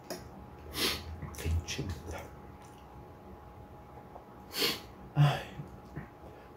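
Close-miked sounds of a person eating creamy instant noodles: short, sharp mouth and breath noises, a pair around a second in and another pair near five seconds, the last the loudest.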